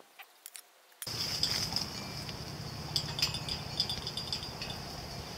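Piglet rooting in loose dirt and gravel: scattered small scrapes and clicks over a steady high hiss, starting about a second in after near quiet.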